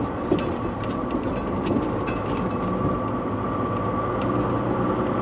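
Volvo VNL semi-truck driving at a steady pace: the diesel engine and road noise make a constant drone, with light clicks and rattles over it.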